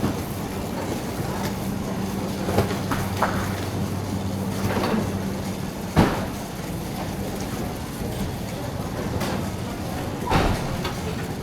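Warehouse store ambience: a shopping cart rolling and rattling over the floor under a steady hum, with a few sharp clanks, the loudest about six seconds in.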